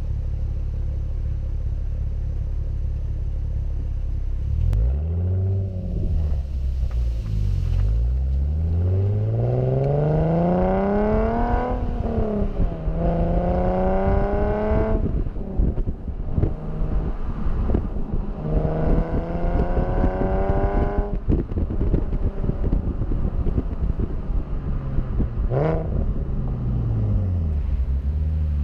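Nissan 370Z's 3.7-litre V6 heard at the tailpipe through a Cobra Sport centre and rear section exhaust: idling, a quick rev about five seconds in, then accelerating hard with rising revs and a gear change, easing off, another pull, and a short rev blip near the end. Wind buffets the microphone under the exhaust note.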